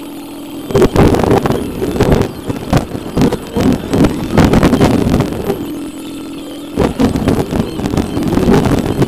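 Citroën C4 being driven: engine and road noise buried under loud, irregular wind buffeting on the microphone, which starts suddenly about a second in. A steady low hum is heard at the start and again briefly just before seven seconds, when the buffeting lets up.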